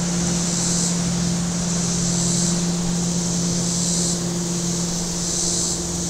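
Cicadas singing in a chorus that swells and fades about every second and a half, over a motorboat engine running steadily.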